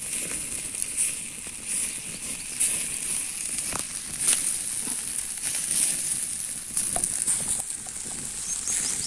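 Open wood fire crackling and popping under a whole chicken roasting on a stick, with the meat sizzling, over a steady high hiss. Sharp pops stand out a few times, clearest midway and near the end.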